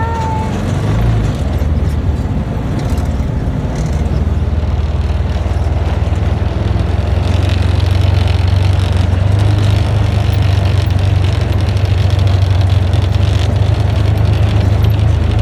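A motor vehicle's engine running steadily with a low rumble that grows louder about seven seconds in.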